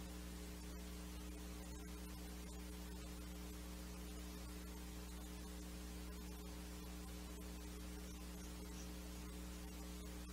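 Steady low electrical mains hum with faint background hiss.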